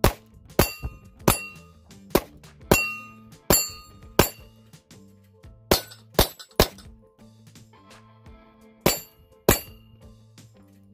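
9mm Glock 19 Gen 5 pistol firing twelve shots: seven at an even pace of a bit under one a second, then three quickly in a row about six seconds in, then two more near the end. Several shots are followed by a short metallic ring.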